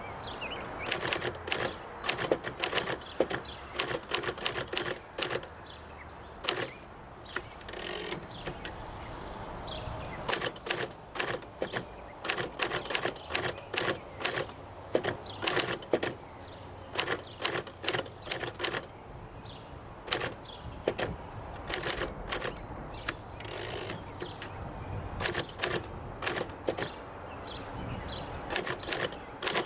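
1951 R.C. Allen 600 standard manual typewriter being typed on: type bars striking in quick, irregular runs of sharp clicks, several a second, with short pauses between runs.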